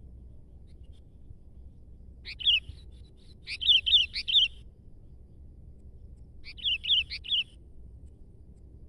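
Sooty-headed bulbul (kutilang) in full song: three short phrases of quick, bubbly whistled notes, about two, three and a half and six and a half seconds in, the middle one the longest and loudest.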